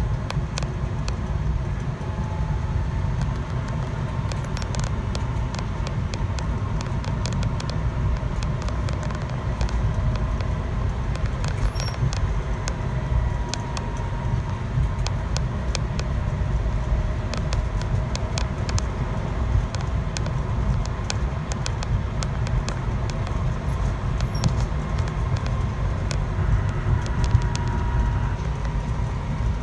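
A road vehicle running steadily with a low rumble, overlaid by many irregular sharp clicks and a faint wavering whine; the clicking is the kind of abnormal noise the title points to.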